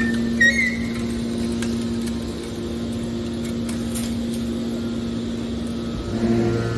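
Hydraulic baler for aluminium cans, its motor and pump running with a steady hum, with a few short high squeaks in the first second. About six seconds in, a deeper, louder hum joins in.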